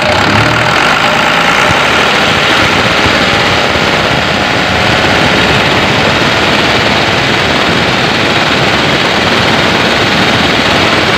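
Diesel engine of a 4-ton Toyota forklift running steadily, while its alternator charges the battery normally, bringing it up to about 14 volts.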